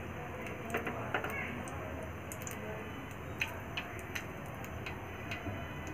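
Hot deep-frying oil in a kadai sizzling around a small test piece of dough, with irregular sharp ticks and pops. The rising bubbles are the sign that the oil is hot enough to fry.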